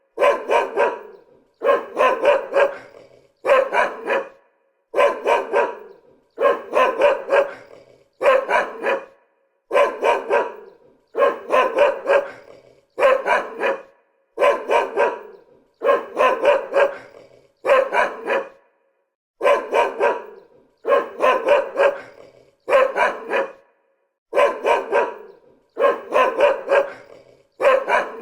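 A dog barking in short bursts of two or three barks, one burst about every second and a half. The same evenly spaced bark pattern repeats throughout.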